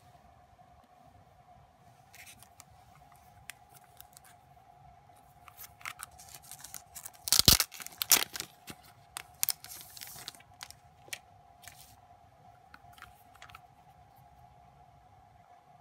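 Thin plastic shrink-wrap crackling and tearing as it is pulled off a small card box, in scattered snaps with the loudest tear about seven and a half seconds in.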